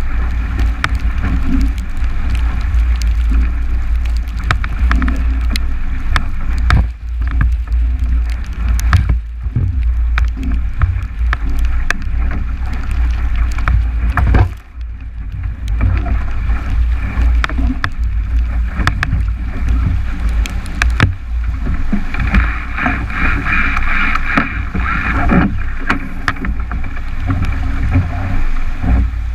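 A 29er skiff planing fast in strong wind, heard through a boat-mounted action camera: heavy wind buffeting on the microphone over rushing water and spray slapping the hull and lens, with frequent short knocks. A higher hum swells for a few seconds about three-quarters of the way through.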